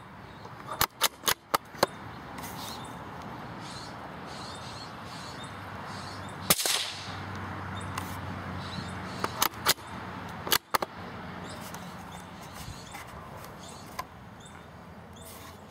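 A single gunshot crack about six and a half seconds in, among quick runs of sharp clicks: five in a row about a second in, and three or four more around ten seconds. Short faint high squeaks sound between them.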